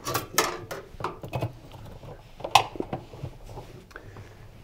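Handling noises from refitting a washing machine door seal's inner retaining band inside the drum: scattered rustling and small metallic clicks as the band is worked around the rubber seal, with one sharper click about two and a half seconds in.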